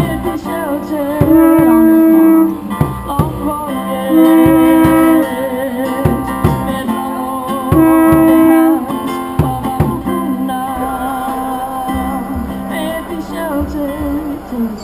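Music: plucked acoustic guitar with long held, wavering notes that swell loud three times, each for about a second.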